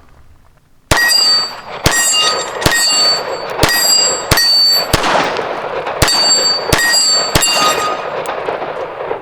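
Ruger Security-380 pistol firing aluminum-cased .380 ACP, about ten shots in a steady, unhurried string starting about a second in, with a metallic ringing after several of them.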